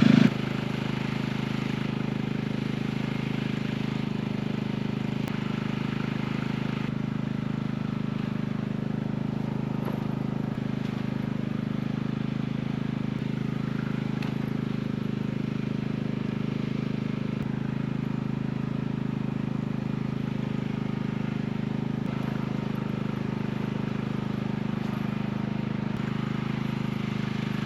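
Portable gas inverter generator running steadily at a constant load, a continuous low engine hum.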